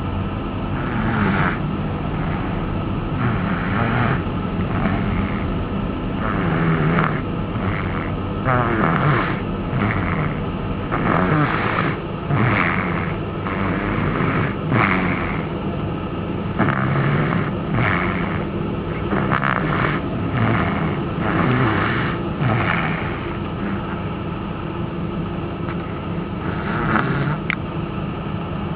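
Snoring: rough, noisy breaths repeating every second or two over a steady low rumble.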